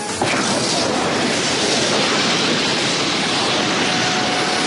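Documentary sound effect for the Big Bang: a steady rushing roar that comes in suddenly about a quarter of a second in. A faint held tone joins it near the end.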